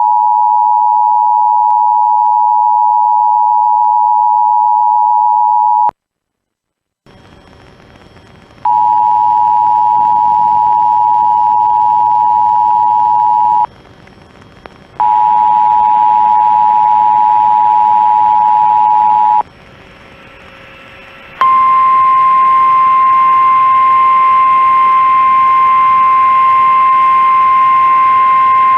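Emergency Alert System two-tone attention signal, a steady loud dual tone that holds for about six seconds and cuts off. After a second of silence, the same two-tone signal comes again twice through radio hiss, and about 21 seconds in a single steady, slightly higher alert tone takes over, announcing an emergency alert.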